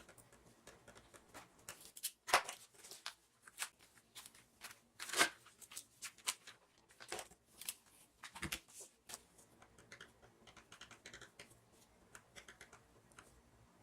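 Plastic food packaging and containers being handled while meat is portioned: an irregular scatter of small clicks, taps and crinkles, with a few sharper clacks about two, five and eight seconds in.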